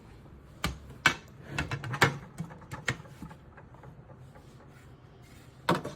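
Light clicks and knocks of a small loose object being handled, a few in the first three seconds, then a quiet stretch and one more sharp knock near the end.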